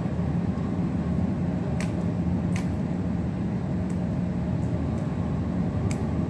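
A few short, sharp snips of scissors cutting baby's breath stems, spread out over a steady low hum.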